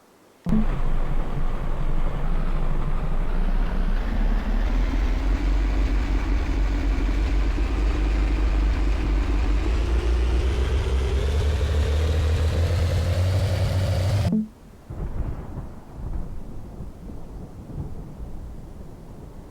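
Vehicle engine running with a deep rumble, its pitch climbing steadily as it accelerates. It cuts off abruptly about fourteen seconds in, leaving quieter uneven noise.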